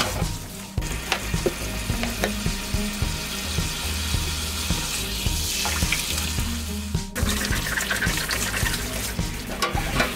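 Tap water running and splashing into a stainless steel bowl in a kitchen sink as lemons are rinsed by hand, with small splashes and knocks. The sound breaks off for an instant about seven seconds in, then the rinsing carries on. Background music plays underneath.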